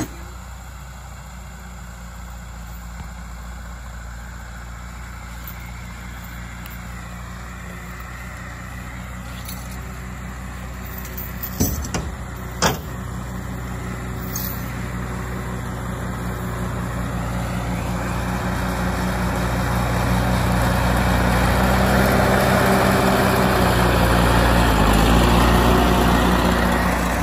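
Small farm tractor engine running steadily as the tractor drives closer, growing louder. Two sharp knocks come about halfway through.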